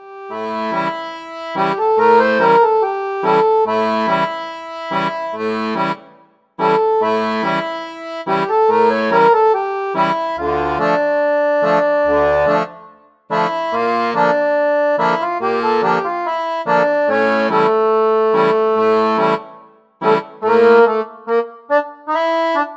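Solo accordion playing a tune in held-note phrases, with short pauses about every six to seven seconds; near the end the notes turn short and detached.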